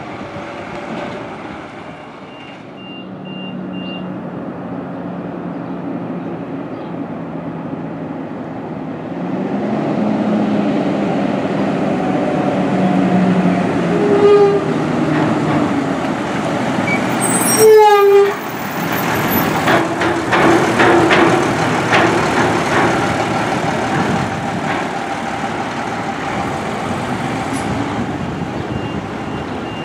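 Diesel rear-loader garbage truck driving past: its engine grows louder as it approaches, with a brief sharp burst about halfway through, then the sound eases off as the truck pulls away.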